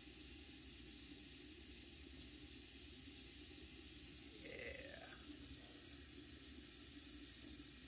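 Steady, even hiss of running water or a fan, with one faint short sound about four and a half seconds in.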